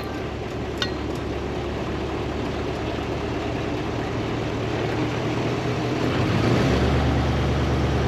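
MAN KAT military truck's diesel engine running as the truck drives along a dirt track, a steady low rumble mixed with road noise. It grows louder over the last second and a half.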